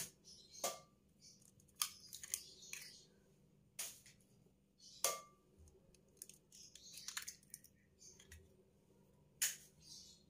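Chicken eggs being cracked open one after another over a glass mixing bowl: a scattered series of sharp taps with soft shell crackling between them.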